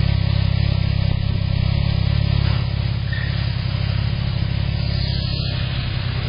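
Can-Am Ryker three-wheeled motorcycle's engine running at low revs as the bike pulls slowly away, a steady low engine note that eases off slightly about two and a half seconds in.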